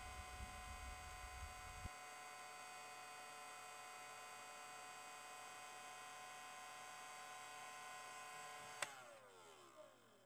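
Electric heat gun's fan motor running with a faint, steady whine. Near the end a click as it is switched off, and the whine falls in pitch and fades as the fan spins down.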